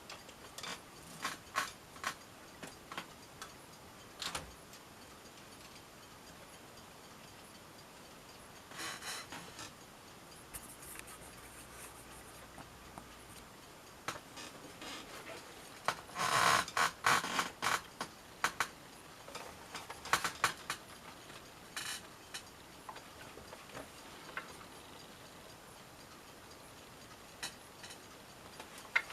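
Smith-Corona Galaxie Twelve manual portable typewriter being typed on: sharp key strikes in irregular groups, with a quick run of strikes about two-thirds of the way through.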